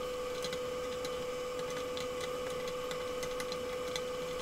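Wooden spoon stirring and scraping palm sugar as it caramelizes in a stainless steel pot, giving scattered light ticks and crackles over a steady hum.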